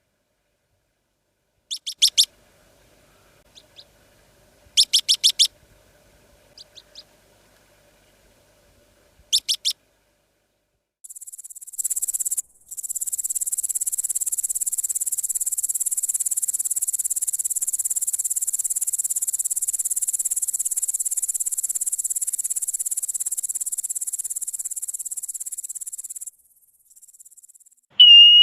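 Steppe animal calls: three clusters of short, high, repeated chirps in the first ten seconds. Then a long, high, even buzzing trill starts about eleven seconds in and runs for some fifteen seconds, the loudest sound here. A clear whistle begins right at the end.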